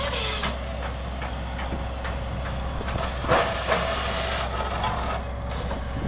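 Borewell drilling rig running with a steady low engine drone, broken by scattered knocks. About halfway through, a loud hiss of rushing air sounds for about a second and a half, then stops.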